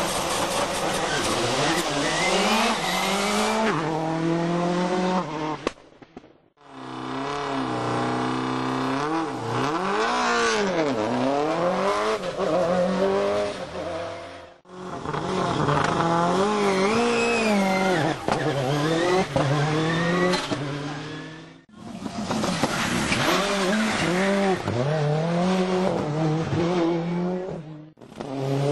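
World Rally Cars' turbocharged four-cylinder engines running hard on a rally stage, the pitch climbing and dropping again and again through gear changes and lifts off the throttle. The sound breaks off abruptly three times as one car's run gives way to another's.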